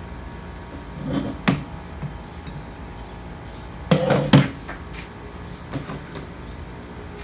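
Tools and metal pump parts knocking and clattering while a hydraulic pump is being taken apart, in two short bursts about a second in and about four seconds in, with a fainter knock near six seconds.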